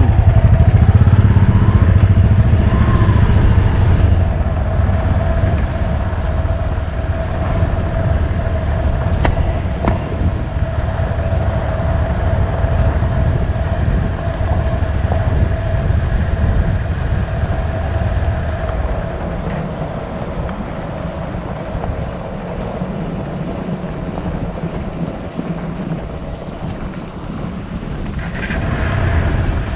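Hero XPulse motorcycle engine running steadily while riding a gravel road, with wind noise on the helmet camera's microphone. It is louder for the first few seconds, then settles to an even run.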